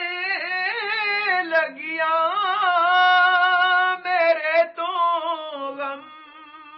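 A solo voice singing a slow melismatic melody, with wavering ornaments and long held notes; it grows quieter near the end and then breaks off.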